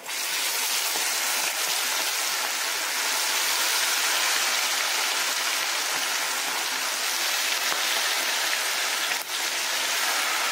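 Chicken drumsticks, coated in a cornflour-and-egg masala batter, deep-frying in a pan of very hot oil: a loud, steady sizzle that starts suddenly as the pieces go in. The oil was heated until it smoked, so it bubbles hard.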